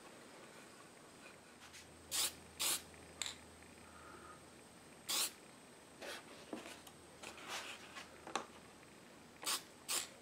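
Aerosol spray can of finish being sprayed in short bursts: about eight brief hisses, several in quick pairs, with softer ones between, as light coats are misted on.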